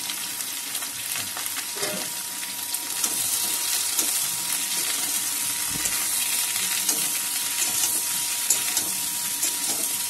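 Chopped vegetables sizzling in hot oil in a metal wok while a steel spatula stirs them, with scattered clicks and scrapes of the spatula on the pan. The sizzle gets louder about three seconds in.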